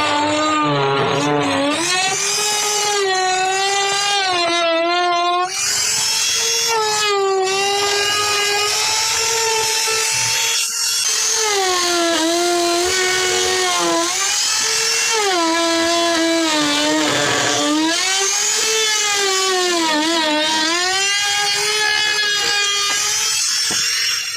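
Electric power tool motor running continuously, its whine dipping in pitch and recovering again and again as the tool is loaded against the work, then switched off at the end.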